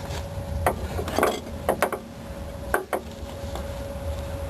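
Short metallic clinks and knocks, about five spread over a few seconds, as a rear shock absorber's lower end is pushed and worked up against its mount. A faint steady hum runs underneath.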